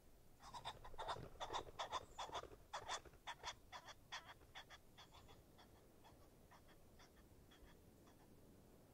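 A bird's rapid run of short repeated calls, about three a second, loudest for the first few seconds and then fading away.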